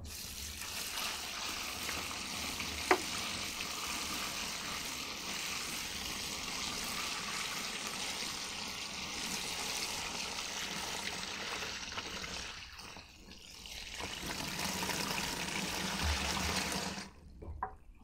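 Water poured from a plastic bucket into the wash tub of a Panda XPB45 portable twin-tub washing machine, splashing onto the clothes as the tub is filled for a wash. The steady pour eases briefly about two-thirds through, picks up again, and stops shortly before the end; a single sharp knock sounds about three seconds in.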